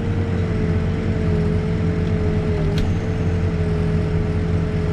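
Heavy diesel earthmoving equipment running steadily: a low, even engine drone with a steady whine above it.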